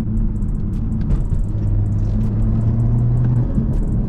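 BMW 340i's B58 turbocharged straight-six droning steadily at cruise through a Valvetronic axle-back exhaust with both resonators deleted, as heard from inside the car. Light clicks and rattles come from the car going over bumps.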